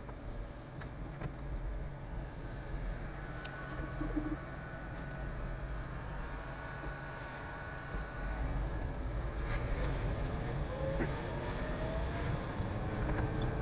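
Concrete mixer truck's diesel engine running with a steady low rumble, which grows a little louder about eight seconds in.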